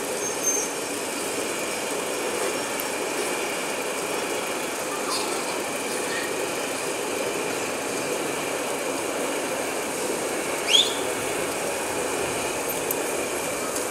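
A large flock of sheep moving along a paved street: a steady shuffling of many hooves, with a low traffic hum beneath it. One short, rising high-pitched call comes about eleven seconds in.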